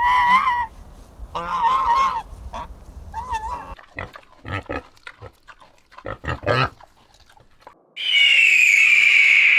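Animal calls: three short pitched calls, then a run of short choppy grunt-like sounds, then a loud long high call that falls slightly near the end.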